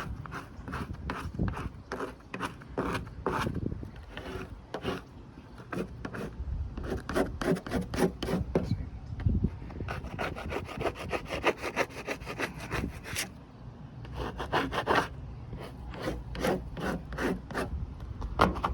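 Hand scraper worked over a car's steel roof in quick repeated strokes, a few a second, lifting vinyl-top adhesive softened by aircraft paint remover. There is a short pause about two-thirds of the way through.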